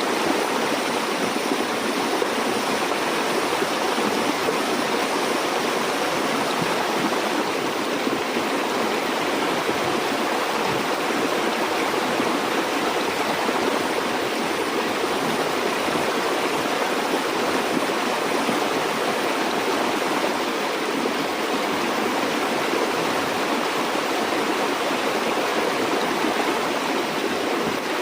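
Stream water flowing over rocks, a steady rushing and babbling with no breaks.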